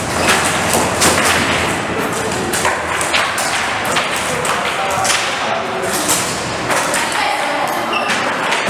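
Foosball being played: rapid, irregular knocks and clacks of the ball and the rod figures hitting the table, with voices chattering.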